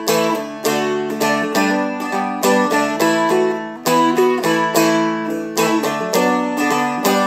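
Seagull Merlin, a four-string fretted dulcimer-style instrument, strummed in steady strokes about twice a second, with a melody played over low strings that ring on as a drone. This is the chord run that ends the song, E, A, B minor, G, E, A and then D.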